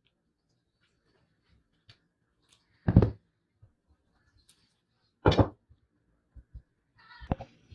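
Two sharp knocks about three and five seconds in, as a painted metal scale base and steel pliers are handled and set down on a wooden tabletop, then a few light clicks near the end.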